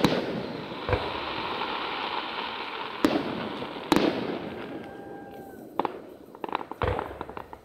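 Aerial firework shells bursting. A sharp bang right at the start is followed by several seconds of crackling, with more bangs about one, three and four seconds in and a cluster of pops near the end.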